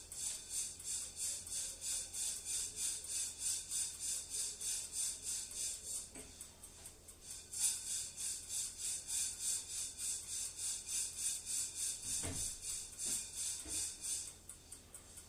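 Freshly roasted coffee beans being shaken in a pan, a rhythmic swishing rattle at about three shakes a second, to shake loose the leftover chaff. The shaking pauses briefly about six seconds in, and there is a low thump about twelve seconds in.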